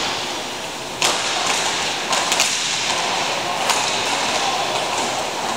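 Hockey sticks slapping the ball and clacking against each other during play: a sharp crack about a second in, a couple more just after two seconds, and another near four seconds, over a steady hiss.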